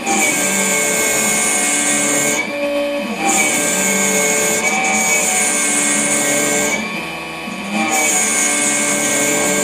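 High-speed machining spindle cutting with a high-pitched whine that drops out briefly twice, about two and a half seconds in and about seven seconds in, then resumes.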